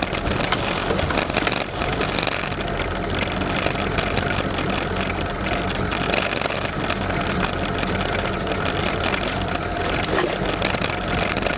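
Boat engine idling steadily, with scattered knocks and clatter from handling the line and catch in the boat.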